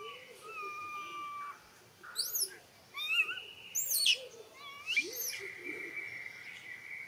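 Forest birds calling: long steady whistled notes, with a few sharp, high, quick chirps in the middle that are the loudest sounds.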